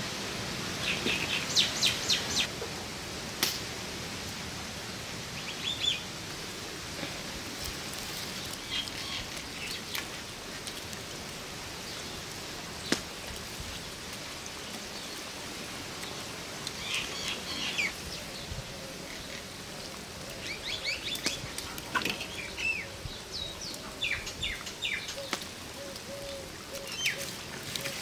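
Small birds chirping outdoors, with short runs of quick high chirps every few seconds. A few sharp clicks are heard between them.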